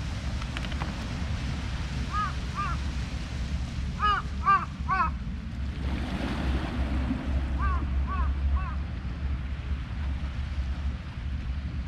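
Steady low rumble of wind and surf on a rocky seashore. Over it a bird calls in three short groups of two to four arched calls, the loudest group a little before the middle.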